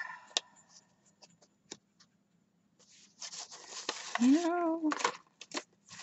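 Craft paper rustling and crinkling as it is handled and creased, with scattered sharp clicks and taps early on and a denser crinkling burst about three seconds in. A short hummed voice sound comes from the person about four seconds in.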